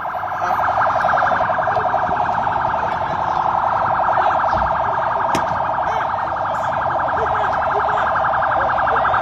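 Helicopter running close by: a steady high-pitched whine pulsing rapidly with the rotor beat, while its downwash whips up dense dust. Faint shouts sound underneath.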